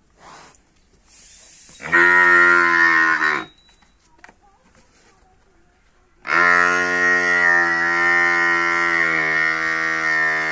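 Water buffalo calf calling: a short call of about a second and a half, then a long drawn-out call of about four seconds, each dropping in pitch as it ends.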